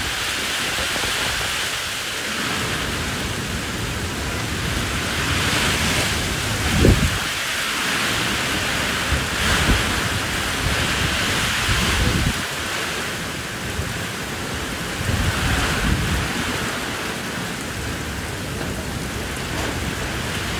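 Heavy rain and hail falling in a storm: a dense, steady hiss with a few low rumbles, the loudest about seven seconds in.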